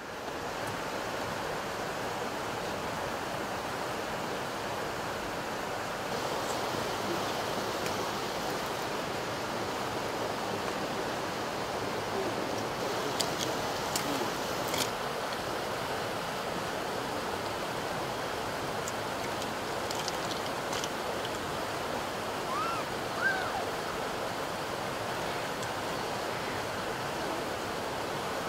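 Steady rushing of flowing water, with a few faint clicks and short chirps over it.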